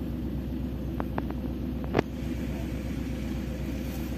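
Steady low rumble of an idling vehicle engine. A few light clicks come about a second in, and a sharper single click comes at two seconds.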